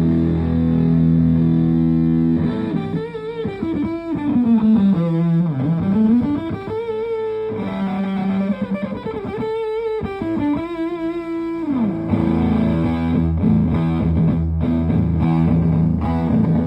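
Electric guitar, a Fender Telecaster Deluxe, played through a Green Russian Big Muff fuzz pedal into a Fender Twin Reverb-style amp, giving a thick fuzzed tone. A held chord opens, then a single-note lead with wide vibrato and a long slide down and back up, and chords return about twelve seconds in.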